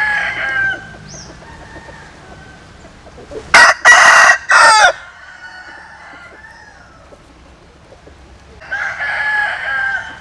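Roosters crowing: a fainter crow at the start, one loud, close crow about three and a half seconds in that ends on a falling note, and another fainter crow near the end from a rooster farther off.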